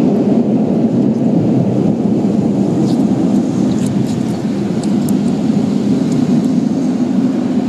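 Automatic car wash tunnel heard from inside the vehicle's cab: a loud, steady rumble of spinning brushes and water spray against the body, with a few sharp ticks and spatters now and then.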